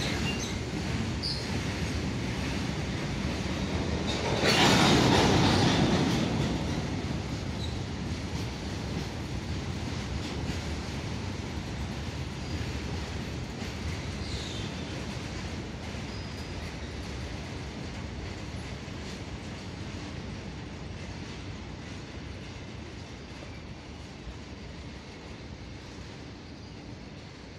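Indian Railways covered goods wagons rolling past, their steel wheels rumbling and clacking over the rails with faint squeals. A louder rush of noise comes about four seconds in and lasts a second or two, and the sound slowly fades as the train draws away.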